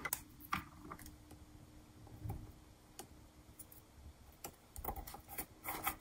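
Faint, scattered clicks and taps of small art supplies being handled and moved on a desk, growing busier near the end.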